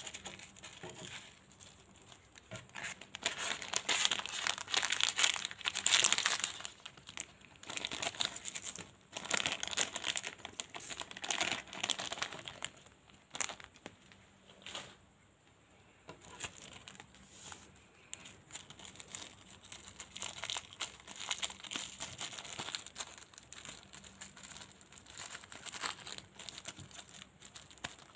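Small red sticker packets being crinkled and torn open by hand: irregular crackling and rustling, loudest in the first half and softer after.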